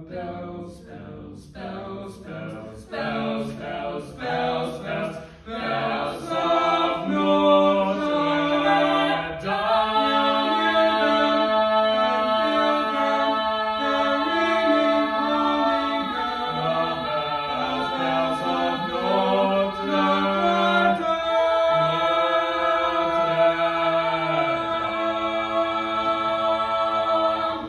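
Four-voice a cappella ensemble singing: short separated notes at first, then, about nine seconds in, long held chords that build to a final sustained chord. The chord cuts off at the end, closing the piece.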